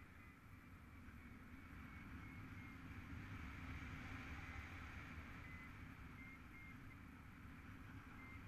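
Faint, steady, muffled wind rush on an action camera during a paraglider flight, with a few short, faint high beeps now and then.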